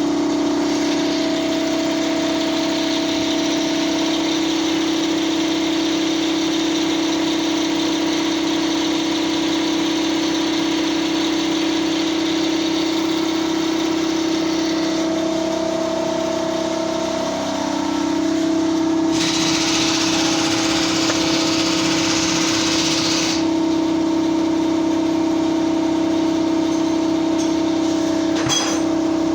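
A motor or engine running with a steady hum, its pitch dipping briefly and recovering about two-thirds of the way in. A loud hissing, rattling noise lasts about four seconds shortly after, and a sharp click comes near the end.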